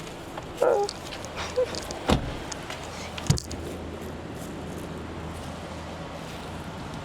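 Clunks and knocks in a car, the loudest a sharp thump about three seconds in, followed by a steady low hum.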